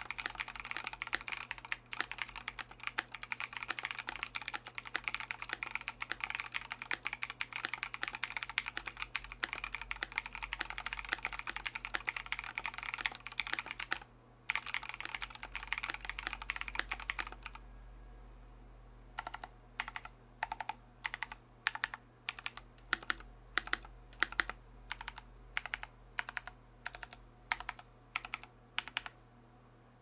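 Custom Corgi65 mechanical keyboard with lubed Tecsee Blue Velvet linear switches, an aluminium plate, case foam and PBT keycaps, typed on quickly and steadily. About 17 seconds in, the fast typing gives way to slower, separate key presses, about two a second.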